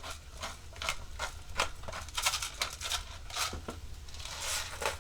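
Irregular clicks and scrapes of a cooking utensil stirring onions, garlic and mushrooms in a frying pan, two or three a second, with a short hiss near the end.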